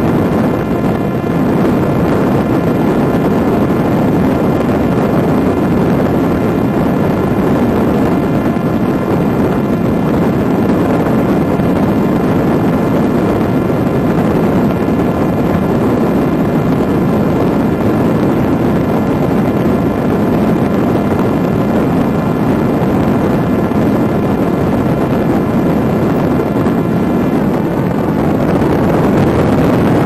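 Parrot Disco fixed-wing drone's electric motor and pusher propeller running steadily under climbing power, a steady whine over loud rushing air noise. The whine fades out near the end as the climb levels off.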